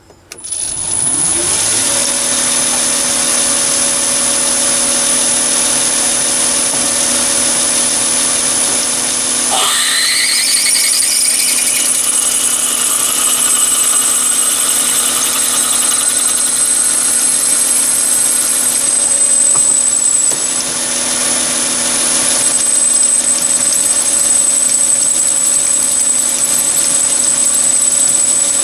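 Chinese mini lathe starting up and running steadily while a twist drill in the tailstock chuck drills into a brass bar, cutting the core hole for an 8 mm thread. A steady high whine runs over the motor's hum, with a tone that rises about ten seconds in and a brief drop in level a little past the middle.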